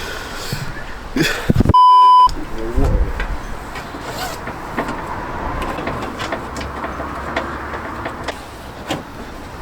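A short, loud censor bleep, a steady 1 kHz tone about half a second long, about two seconds in, with all other sound muted under it. Around it, scattered light clicks and knocks.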